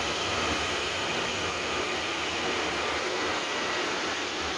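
Taiwan Railway electric multiple-unit commuter train moving along the platform: a steady rumble and hiss from the train, with a faint whine on top.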